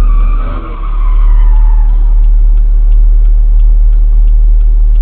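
Vehicle tyres squealing in a skid, a high squeal that slides down in pitch and fades out about two seconds in, over a loud, steady low rumble of engine and road noise. Faint regular ticks run underneath, about three a second.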